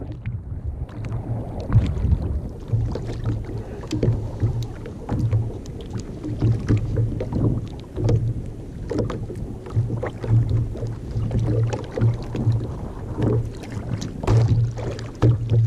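Water lapping and slapping against the hull of a sit-on-top kayak, with irregular low knocks and small splashes.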